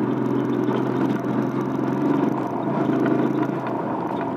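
Motorcycle engine running at a steady speed on the move, a steady drone, heard through a phone camera mounted on the rider's helmet.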